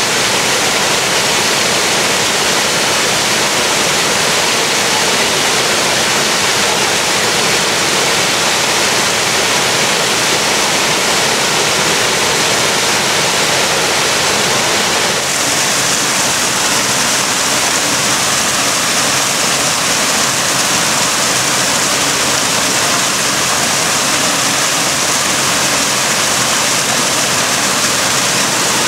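Steady rush of man-made waterfalls splashing into a pool. About halfway through it turns brighter and hissier.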